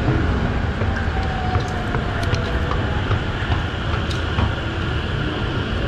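Train station noise: a steady low rumble, a faint whine falling slowly in pitch over the first few seconds, and a few light clicks.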